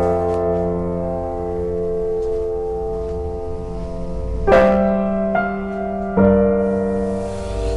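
Background piano music: held chords that change about four and a half seconds in and again about six seconds in.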